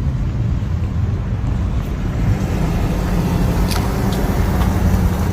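A steady low engine hum, with a few faint clicks about four seconds in.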